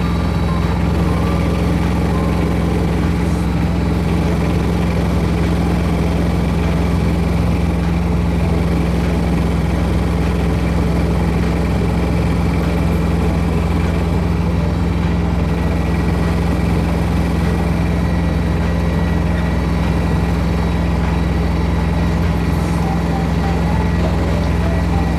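Old tractor engine running steadily at an even speed, with no change in revs.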